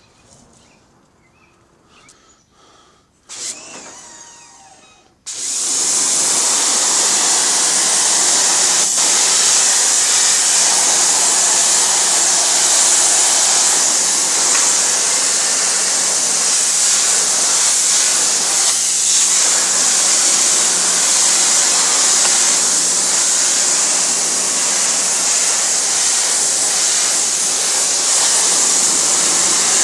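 Greenworks electric pressure washer starting up after a brief burst about three seconds in, then running steadily from about five seconds in: a loud, even hiss of the high-pressure water jet over the steady hum of its electric motor pump.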